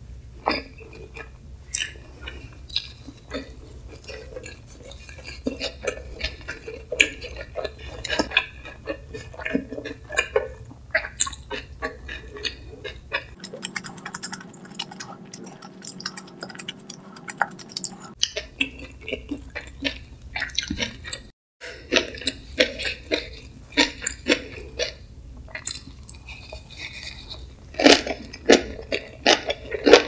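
Close-miked eating sounds: chopsticks clicking and tapping on plates as wraps of pickled radish and perilla leaf are put together, then wet chewing of a mouthful of spicy stir-fried webfoot octopus (jjukkumi-bokkeum).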